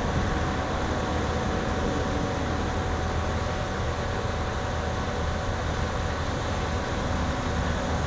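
Crawler drill rig for soil nailing running steadily, a constant mechanical hum with a thin steady whine over it.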